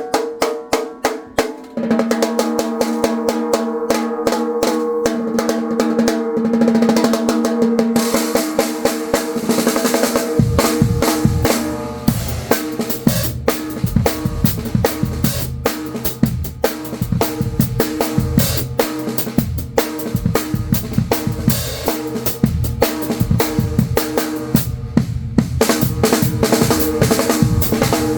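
Pearl Shot Fuse 13×3.5-inch snare drum with a 1 mm steel shell, ringing with a strong pitched overtone. It is struck alone at first, then played in faster patterns, and the rest of the drum kit joins in a groove with bass drum from about ten seconds in.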